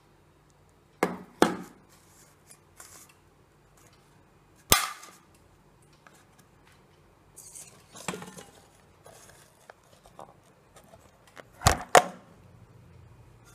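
Sharp metal clicks and snaps of a tin of tuna being handled and its lid pulled open. There are two snaps about a second in, one more a few seconds later, a rattle of small clicks past the middle, and the loudest pair of snaps near the end.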